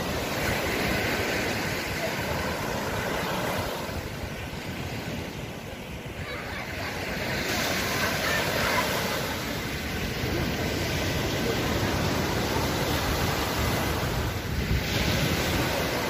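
Small sea waves breaking and washing up on a sandy beach, a continuous surf noise that swells louder about seven seconds in, with wind rumbling on the microphone.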